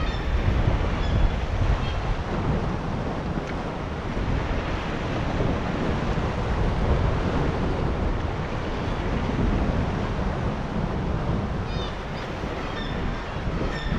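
Sea surf washing and breaking over shoreline rocks, with wind buffeting the microphone, rising and falling gently in loudness.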